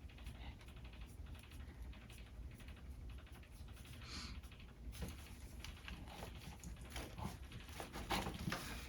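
Faint rustling and many soft, irregular taps of hands pressing and feeling along a patient's back through clothing, palpating for tender spots.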